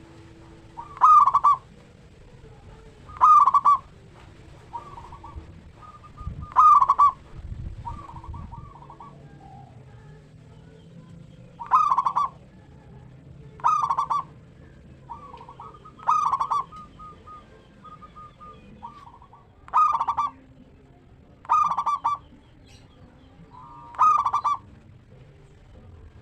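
Zebra dove (perkutut) cooing: nine loud, short song phrases a couple of seconds apart, with softer coos between them.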